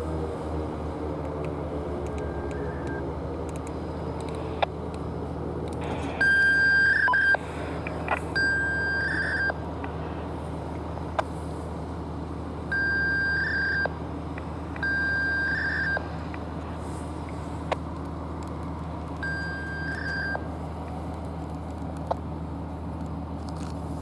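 The last of an outdoor warning siren winding down, falling in pitch and fading out within the first couple of seconds, over a steady low hum. Electronic beeps at one high pitch, each about a second long, sound in two pairs and then once more, with a few sharp clicks between them.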